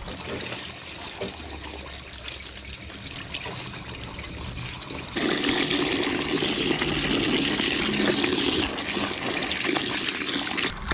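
Tap water running into a sink over a soaked backpack while a rubber-gloved hand presses and scrubs it. About five seconds in, the water becomes much louder, a steady splashing pour right up close, and it stops abruptly near the end.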